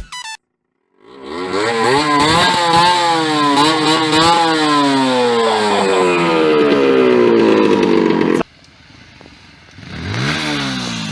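Motorcycle engine revving in several quick blips, then a long falling pitch as the revs drop, cut off abruptly. A quieter rev rises and falls again near the end.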